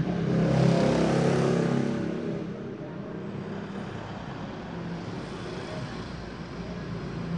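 A motor vehicle's engine passing on a road, swelling in the first two seconds and then fading into steady traffic noise.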